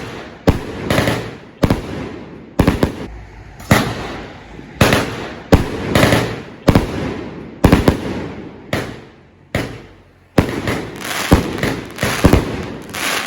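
Multi-shot firework cake firing shot after shot: a loud bang about once or twice a second, each dying away quickly, with a short lull near the end before the shots resume.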